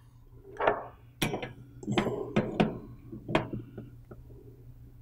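Wrench clinking and clicking against the brass compression fittings of a humidifier solenoid valve as the connections are tightened: several irregular sharp metallic knocks, thinning out after about three and a half seconds.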